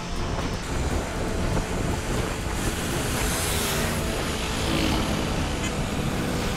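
Wind and road noise while riding a Honda Activa scooter: a steady, heavy rush buffeting the microphone. A brighter hiss swells about two and a half seconds in and fades about a second and a half later.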